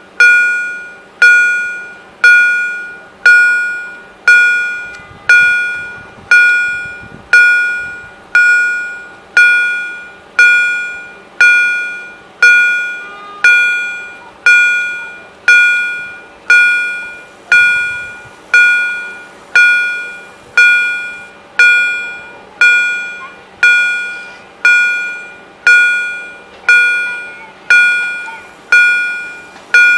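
EHL level-crossing warning bell ringing with even strikes about once a second, each strike sharp and dying away before the next. The bell signals that the crossing is active and a train is approaching.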